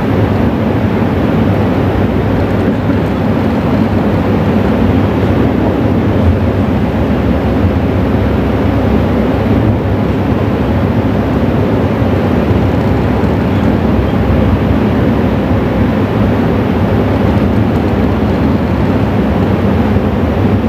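Steady, loud low rumbling noise with a faint hum and no voices; it does not change.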